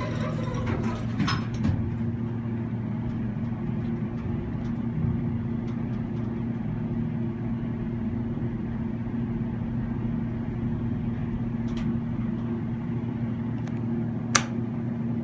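Atlanta Oiltronic hydraulic elevator running, heard from inside the cab: a steady low hum with a pitched drone. A single sharp click near the end as a button on the car's panel is pressed.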